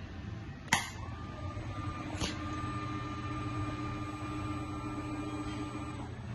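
The fourth-axis rotary table of a YCM NMV106A vertical machining center homing: a sharp click about a second in and another a second or so later, then a steady servo whine that stops shortly before the end, over the machine's constant low hum.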